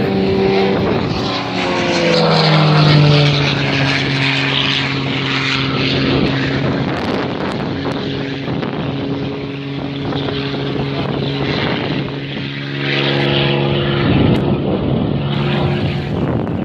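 Propeller-driven aerobatic plane's engine running during a smoke-trailing display. Its note drops about a second in, holds steady, then rises and falls again near the end as the plane manoeuvres overhead.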